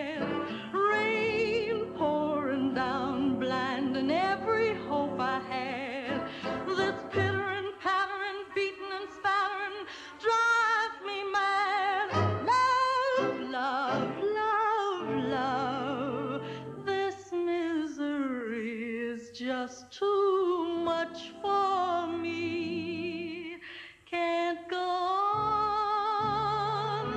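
Slow 1940s film-soundtrack music without lyrics: an orchestral passage whose melody line wavers with heavy vibrato.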